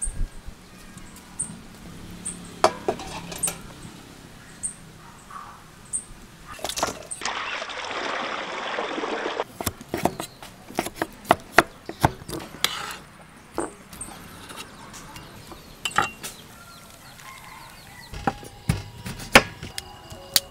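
Kitchen knife chopping sea snail meat on a wooden cutting board: a run of sharp knocks, bunched about halfway through and again near the end. A few seconds before the chopping comes a rushing noise about two seconds long.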